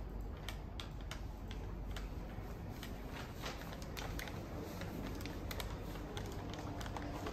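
Scattered sharp clicks, several a second at irregular spacing, over a steady low background hum.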